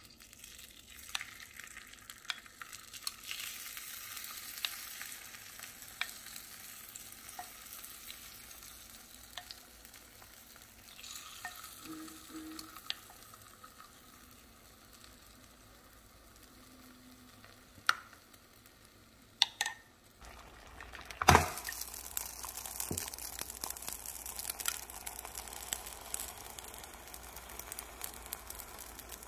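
Beaten egg sizzling and crackling on the hot plates of a mini waffle maker as it is spooned on. There is a single loud knock about two-thirds of the way through.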